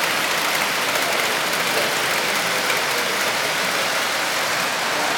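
A small model-railway handcar running along the track, its electric motor and wheels making a steady, even noise.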